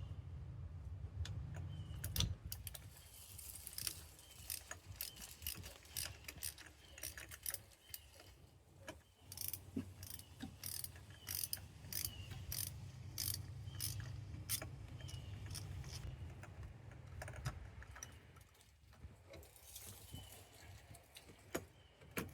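Ratchet wrench with a 14 mm socket clicking in repeated short runs as a spark plug is loosened and backed out of the cylinder head. There is one louder knock about two seconds in.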